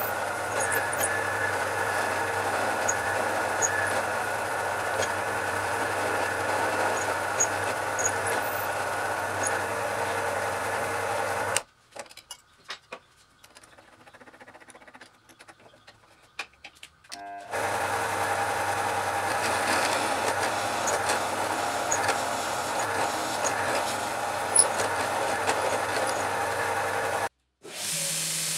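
Drill press motor running steadily while drilling holes through rosewood handle scales. It stops for about six seconds in the middle, with a few small clicks while the drill bit is handled, then runs again. Near the end a belt sander starts up with a lower, steady hum.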